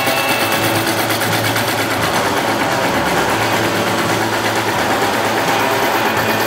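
Pedestal-mounted power shear running and cutting sheet steel, its reciprocating blade chattering quickly and evenly as a thin strip is trimmed from the edge of a car door skin.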